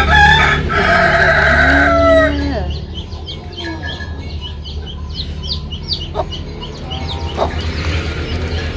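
A rooster crows once, a loud held call of about two and a half seconds that falls away at the end. It is followed by a run of short, high peeping chirps from poultry over a low steady hum.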